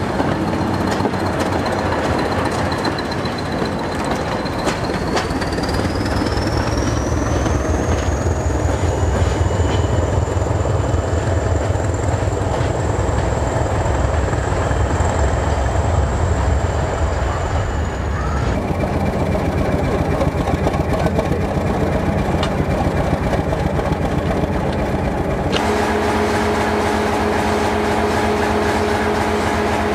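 Diesel-electric multiple unit pulling away, its coaches clattering over the rails, while a high whine rises in pitch about four seconds in and then holds. Near the end the sound changes abruptly to an English Electric diesel engine running steadily, heard close up inside the power car's engine room.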